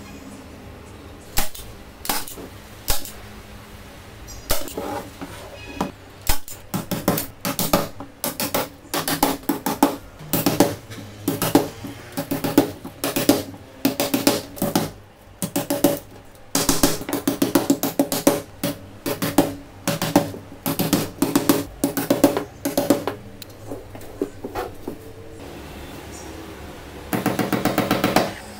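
Hammer tapping small nails into a wooden tray frame through wire mesh: single taps and quick runs of light strikes. Near the end comes a brief, rapid, buzzing rattle.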